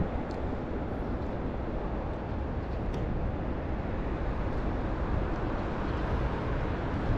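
Steady outdoor city background noise, an even rush with no distinct events, with two faint ticks.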